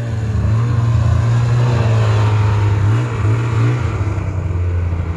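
Bombardier snowmobile engine revving in repeated surges as the sled works through deep snow, then dropping to a steadier lower run about four seconds in.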